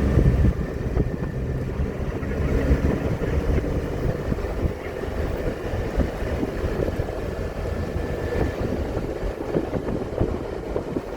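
Vehicle driving, heard from inside the cabin: a steady rumble of road and tyre noise with many small knocks and rattles.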